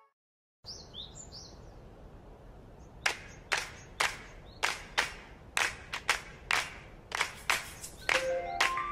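Footsteps clicking on a hard floor, about two a second, over faint background ambience with a few high chirps near the start. A soft music melody comes in near the end.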